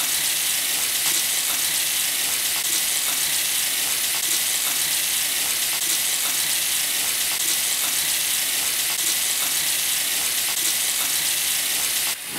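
Tap water running steadily from a bathroom faucet into the sink while soapy hands are rubbed together under it, with faint soft wet smacks of the hands. The sound briefly dips near the end.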